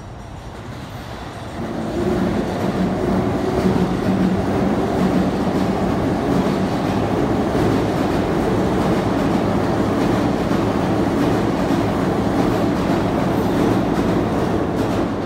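JR Keihin-Tohoku Line E233-series electric commuter train running past on the track below: a steady rumble of wheels on rail that swells about a second and a half in and then holds.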